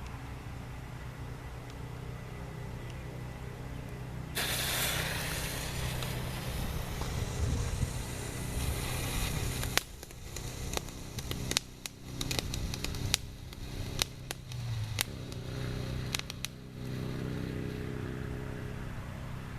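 Flashing fountain firework going off: about four seconds in it starts spraying with a loud, steady hiss, then for several seconds gives off a run of sharp pops and crackles before dying down.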